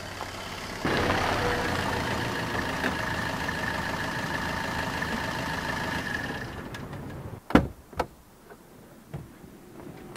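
Fiat Grande Punto's engine running steadily as the car pulls over and stops, then falling away about six or seven seconds in. Two sharp clicks follow a moment apart, with a few fainter clicks near the end.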